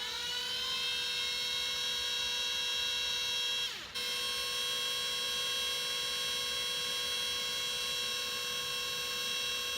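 Panasonic EY7441 14.4 V cordless drill/driver motor whining as it spins up and runs at a steady speed. It slows and stops for a moment about four seconds in, then starts again and runs steadily.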